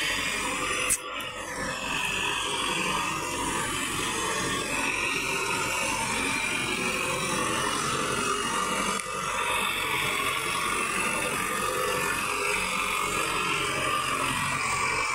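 Sonalika tractor's diesel engine running steadily under load as it pulls a rotavator through a flooded, muddy field. There is a single sharp click about a second in.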